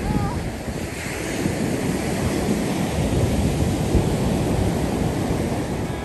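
Ocean surf washing onto a beach, a steady rushing noise, with wind buffeting the microphone.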